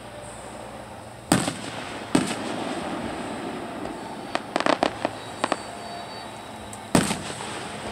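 Aerial firework shells bursting overhead: three loud booms, about a second in, a second after that, and near the end, each with a short echo. In the middle comes a quick run of smaller, sharper pops.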